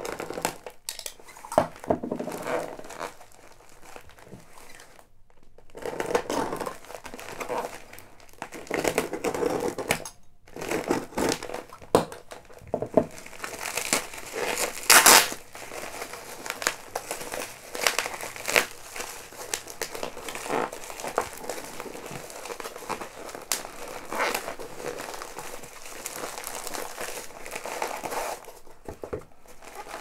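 Plastic postal mailer bag being slit open with a utility knife and torn apart by hand: irregular crinkling, tearing and rustling of the plastic and bubble wrap, loudest about halfway through.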